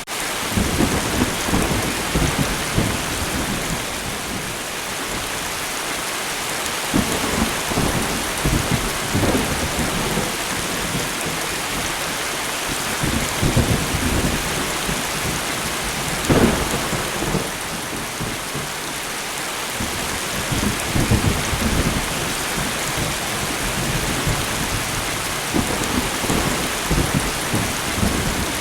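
Steady rain falling, with thunder rumbling low and rolling in repeatedly; the loudest crack comes about sixteen seconds in.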